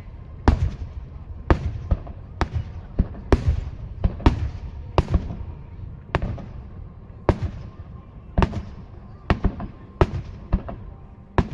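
Aerial firework shells bursting in a rapid series: a dozen or so sharp booms, about one a second, each followed by a rolling rumble.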